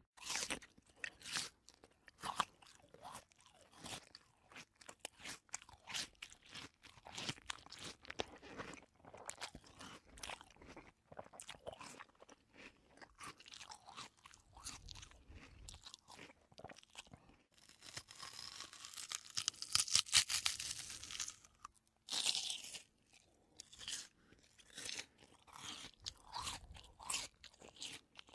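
Crunching, chewing-like noises: many short, irregular clicks and crackles, with a louder hissing rush from about 18 to 21 seconds in.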